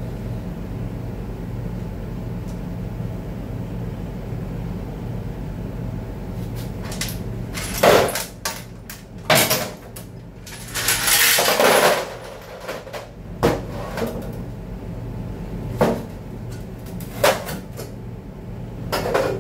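Metal clanks and knocks from an aluminium transmission oil pan and a metal can being handled on a workbench, with a longer, noisier clatter about eleven seconds in. A steady low hum runs underneath.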